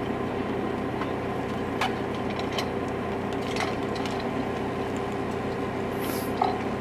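Rail motor car's engine running steadily at idle, with a few sharp metallic knocks from work on the vehicle, a brief high hiss and a thump near the end.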